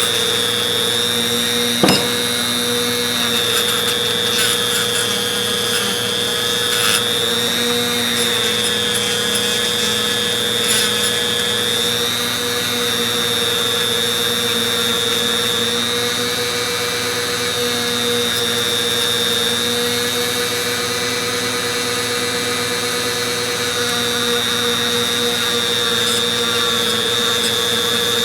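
A small-wheeled power tool's motor running steadily with a high whine, its pitch sagging slightly a few times as the work is pressed against the wheel. A sharp click sounds about two seconds in.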